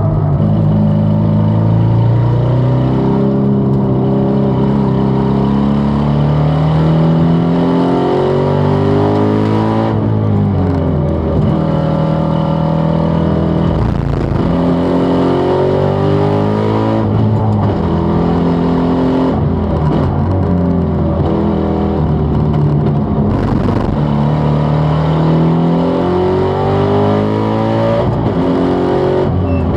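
Subaru Impreza WRX STI spec C engine pulling hard, its pitch climbing and then dropping back several times as it changes gear. The exhaust sounds wrong because the aftermarket stainless exhaust manifold has broken.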